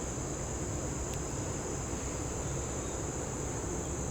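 Steady high-pitched insect chorus droning without a break, over a low rumble of wind on the microphone, with a faint tick about a second in.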